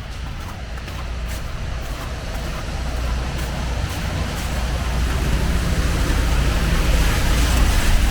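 A motor vehicle passing on a wet road: a low engine rumble and tyre hiss that grow steadily louder as it approaches.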